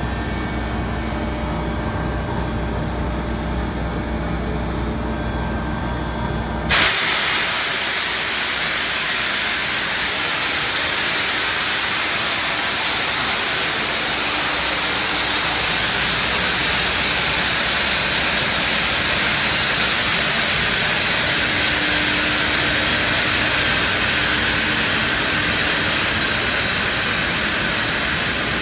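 Large blow molding machine running: a steady low machine hum, then about seven seconds in a sudden loud hiss of compressed air that keeps on evenly, as in the blowing stage of the cycle.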